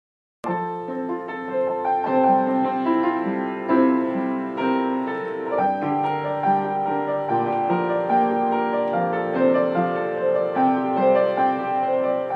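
Piano music with no singing: a melody over held chords, starting abruptly about half a second in after a moment of silence.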